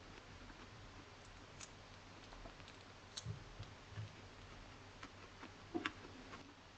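Guinea pig eating dried food from a ceramic dish: faint scattered clicks of chewing and food against the dish, with a few soft low thumps about three seconds in and two sharper clicks near the end.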